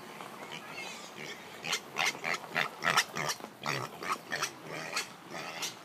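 Piglet giving a rapid run of short, sharp grunts, about three a second, starting about a second and a half in.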